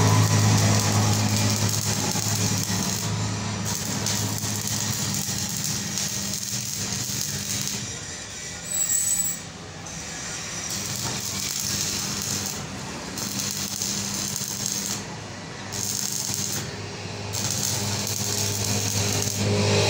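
Electric arc welding on the end of a motor shaft: the arc crackles steadily over a low hum and stops briefly a few times, about 8 s in and twice between 15 and 17 s, as the welder breaks the arc. Weld metal is being laid on the shaft end to build it up for resizing.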